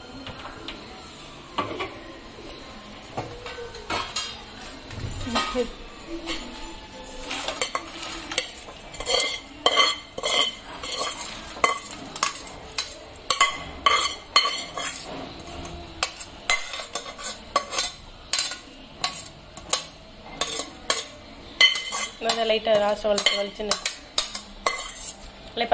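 Steel ladle scraping and clinking against a stainless steel pressure cooker as dry-roasted spices and chillies are scooped and tipped onto a steel plate: repeated sharp metallic clinks and scrapes, thickest through the middle.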